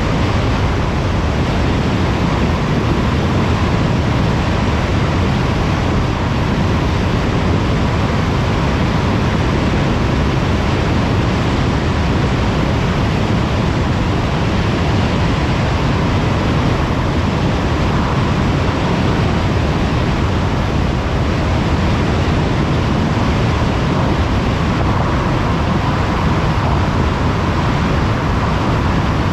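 Steady road noise of a car cruising on a motorway: an even rush of tyre and wind noise, heaviest in the low end, with a faint steady tone running through it.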